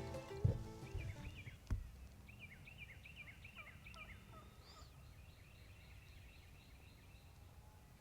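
Osceola wild turkey gobbling faintly, a quick run of repeated rattling notes from about one second to five seconds in. Two sharp knocks come just before it, near the start.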